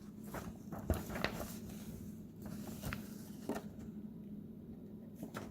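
Paper instruction booklet being handled and its pages turned, with a few faint rustles and taps spaced about a second apart over a low steady hum.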